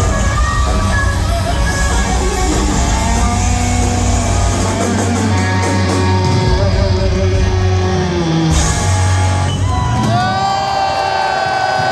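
Rock band playing loud live in a large hall: electric guitar, bass and drums with vocals. About ten seconds in the low end drops away, leaving one long held note.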